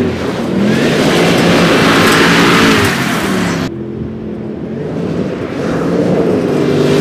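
Land Rover Defender V8's supercharged 5.0-litre V8 revving as the truck accelerates, its pitch rising and falling, with tyre noise from wheels churning through mud. A little past halfway the sound drops suddenly to a quieter, lower engine note, then builds again as it accelerates.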